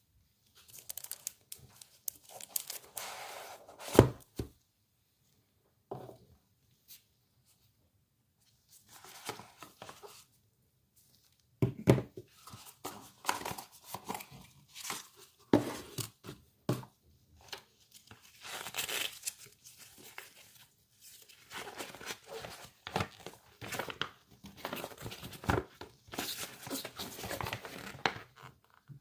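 Packaging being torn open and crinkled by hand, in irregular spells of rustling with a few sharp clicks or knocks in between.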